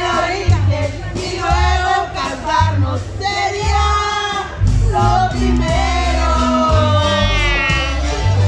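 Several women singing together into a microphone over loud amplified music with a heavy, pulsing bass.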